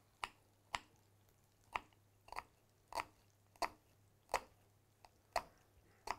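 Chef's knife cutting through a white onion on a wooden cutting board: about ten crisp cuts, each ending in a knock of the blade on the board, one every half-second to second.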